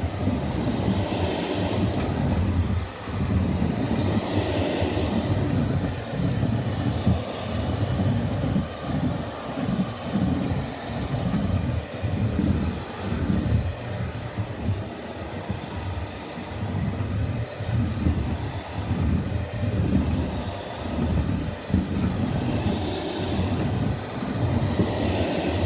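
Upright vacuum cleaner running while it is pushed over the floor: a steady motor drone over an uneven low rumble, with a hissing rush that swells near the start and again near the end.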